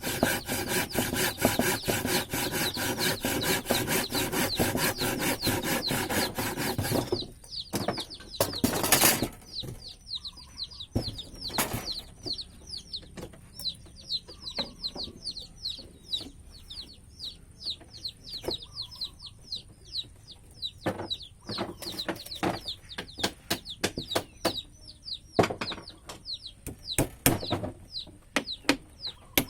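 A hand tool worked across wood in fast, even rubbing strokes, stopping about seven seconds in. After that come repeated short high chirps, a faint steady high tone and occasional knocks.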